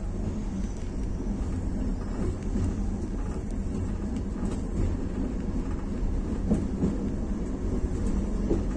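Tram car running along the rails, heard from the driver's cab: a steady low rumble of wheels and running gear, with a few faint knocks in the second half.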